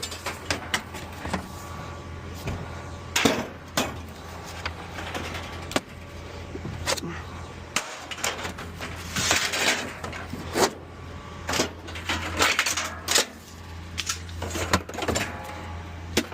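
Scrap steel being thrown off a trailer onto a scrap pile: irregular metal clanks and clatters, some single knocks and some longer rattling crashes, over a steady low hum.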